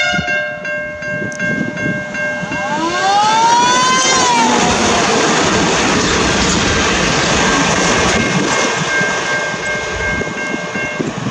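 John Holland track tamping machines running past on the line, a steady engine and wheel rumble. About three seconds in, a short squeal rises and then falls in pitch, and a faint steady high tone sounds through the second half.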